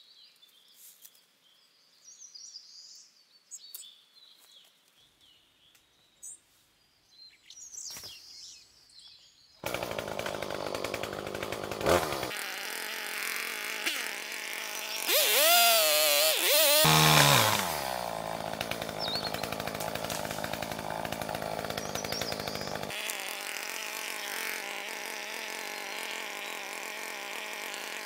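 Two-stroke chainsaw engine cutting in suddenly after a few quiet seconds, revving up and down in the middle, then settling to a steady idle.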